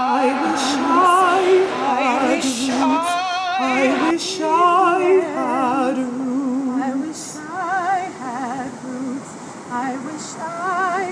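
A woman singing solo without accompaniment, with a wide vibrato: long held phrases at first, then shorter phrases with pauses between them.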